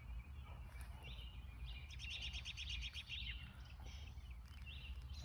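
Faint bird chirping, with a quick trill of rapid chirps about two seconds in.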